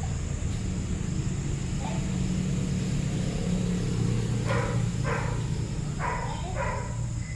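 A dog barks four times in quick succession about halfway through, over a steady low hum.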